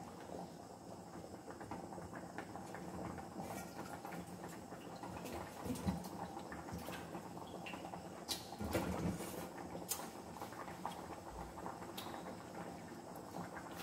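A mung bean dish simmering in a frying pan over a gas flame: a steady low bubbling with scattered soft pops and ticks.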